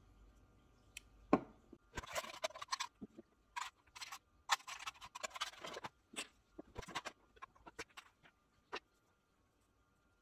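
Hands handling a thread spool and a plastic home sewing machine while threading it: a string of small clicks, taps and rustles, with one sharper knock just over a second in.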